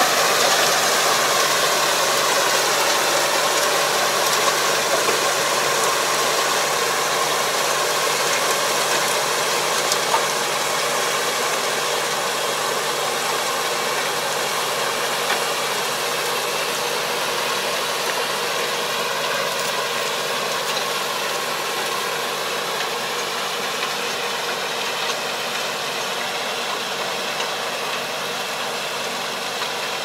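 Tractor engine running steadily as it pulls a puddling harrow through a flooded rice paddy, slowly fading as the tractor moves away.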